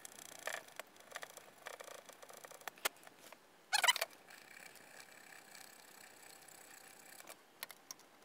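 Faint, sped-up rasping and small clicks of a small hand file working broken plastic standoffs flat on a Commodore 64 case, with one brief louder rasp about four seconds in.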